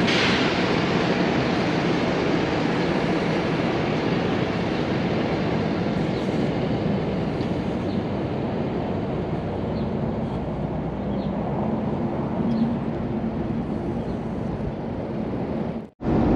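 Steady vehicle rumble: an even, continuous roar of engines and road noise with no distinct strikes, cutting off suddenly near the end.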